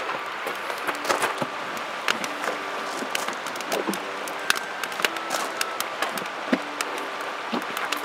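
Split wood kindling burning in an open fire pit, crackling steadily with frequent sharp pops at irregular intervals.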